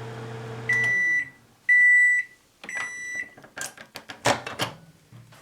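Microwave oven running with a steady hum that stops about a second in, followed by three high beeps about a second apart, signalling the end of the cooking cycle. A run of sharp clicks and knocks follows.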